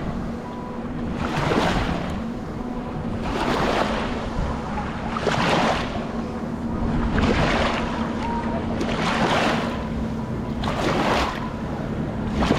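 Small waves washing in at the shore, a swell of hiss about every two seconds, over a steady low hum.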